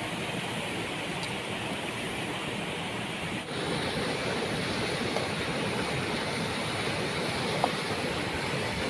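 A waterfall's water rushing in a steady, even noise, which drops out for a moment about a third of the way in and then runs on slightly louder. A single small click comes near the end.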